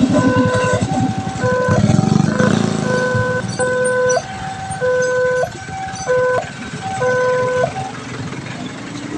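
Railway level-crossing alarm sounding a repeating two-tone chime, alternating a lower and a higher note about every half second. A low vehicle rumble lies under it for the first few seconds and then fades.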